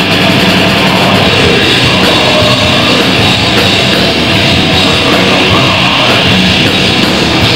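Heavy metal band playing live: distorted electric guitar through Marshall cabinets and a drum kit, loud and unbroken.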